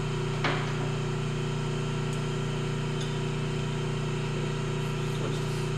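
Hardinge HC chucker turret lathe running with a steady motor hum, and a single sharp click about half a second in.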